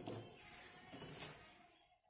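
Light clicks and handling noise from a 9-volt battery and its snap connector being worked with the fingers: a sharp click at the start, a second lighter tick a little over a second in, then quiet as the battery is set down.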